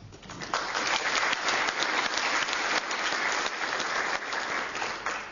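Audience applauding, building up quickly and dying away near the end.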